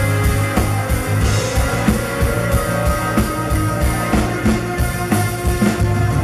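Live rock band playing, with a steady drum-kit beat over sustained bass and keyboard notes.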